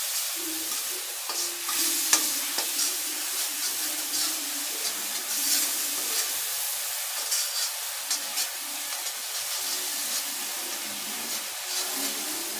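Spice paste sizzling as it fries in oil in a steel kadhai, with a splash of water added to keep it from catching. A metal spoon stirs and scrapes it round the pan, with scattered clicks of metal on metal.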